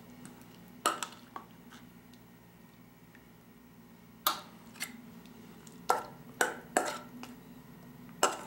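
Metal spoon clinking against a stainless steel bowl while ceviche is spooned out: about nine sharp, short clinks at irregular intervals.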